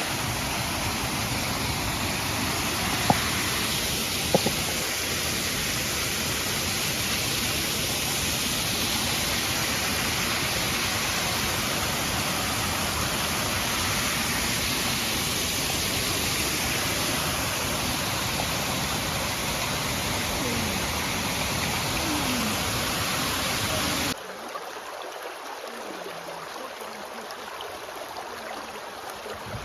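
Waterfall rushing: a steady, dense roar of falling water, with two sharp clicks a few seconds in. About 24 s in it cuts abruptly to a quieter, thinner flow of running water.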